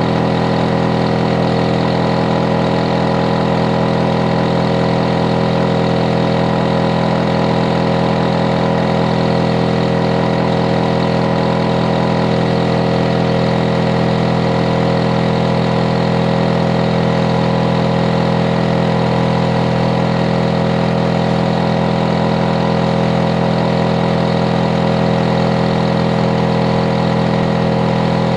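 Hitachi air conditioner outdoor unit running steadily: a constant hum of many steady tones with a hiss above it, unchanging throughout. It is the running noise the uploader finds far too loud ("too energetic"), a neighbour noise problem.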